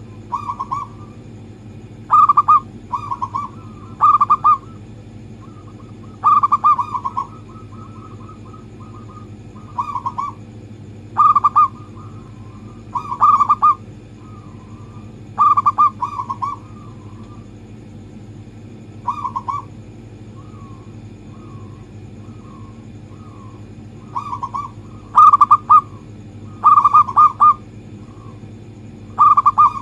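Zebra dove (perkutut) cooing: short bursts of rapid, stuttering coo notes repeated every second or two, with softer trilled notes in between. A steady low hum runs underneath.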